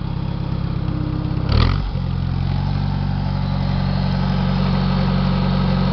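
International 140 tractor's four-cylinder engine running steadily. A short clunk comes about a second and a half in, after which the engine's note shifts slightly and holds steady again.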